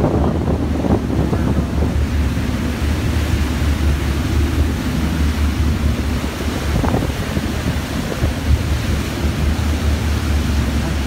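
Wind buffeting the microphone over the rush of churning water in a moving boat's wake, with a steady low rumble underneath.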